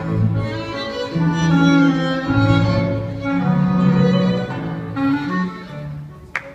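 Viennese waltz music playing, with sustained notes that fade down near the end.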